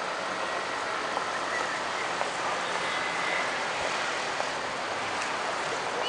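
Busy city street at night: steady traffic noise from passing cars and trucks, with small scattered clicks and knocks.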